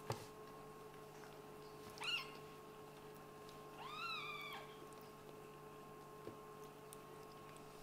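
Kitten meowing twice: a short rising squeak about two seconds in, then a longer meow about four seconds in that rises and falls. A single sharp tap just as it begins.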